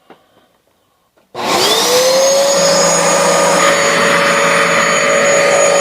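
Hoover Dual Power Pro carpet washer switched on about a second and a half in: its motor spins up with a rising whine, then runs loud and steady.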